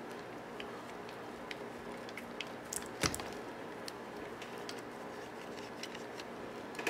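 Light ticks and taps of small hand tools and metal parts being handled while a cassette deck is taken apart, with one sharp click about three seconds in and a metallic clatter starting at the very end, over a steady low hum.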